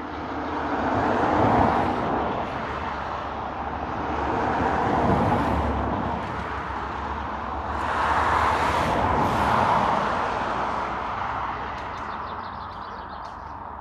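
Propeller engine of a single-engine light aircraft running as it rolls along the runway. Its sound swells and fades three times.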